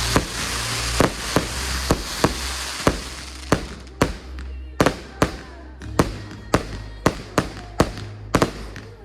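Fireworks going off in a rapid series of sharp bangs, about two a second, while a hissing, crackling wash fades out over the first few seconds. Music plays underneath.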